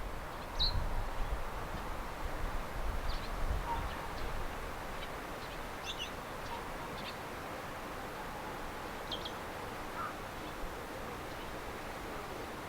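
Faint, short high bird chirps, scattered singly and in pairs about every second or two, over a steady outdoor hiss. Low rumbling in the first few seconds.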